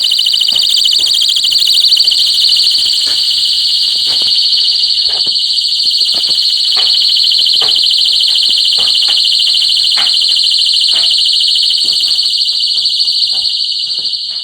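Revere mini fire-alarm horn sounding its warble tone: a loud, high, rapidly wavering electronic tone held steadily throughout.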